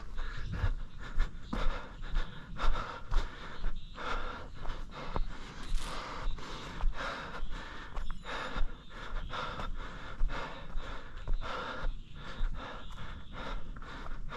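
Heavy, rhythmic panting of a runner close to the microphone, about two breaths a second, with light footfalls on the trail between them.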